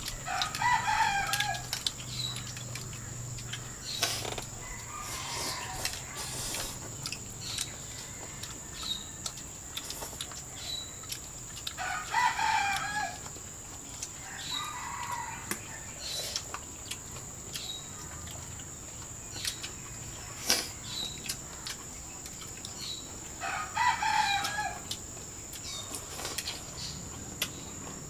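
Rooster crowing three times, about twelve seconds apart, each crow about a second long, with fainter crows between. Short bird chirps recur throughout over a steady high-pitched whine.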